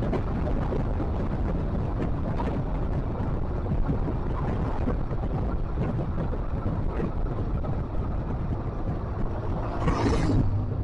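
Steady rumble of a moving vehicle, with wind buffeting the microphone. Near the end, a louder whoosh rises and falls, like another vehicle passing close.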